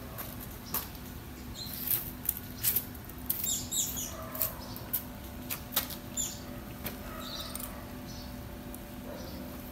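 Scattered sharp clicks and knocks as an old Kinetic Honda scooter is handled and readied for starting, its engine not running. House sparrows chirp faintly.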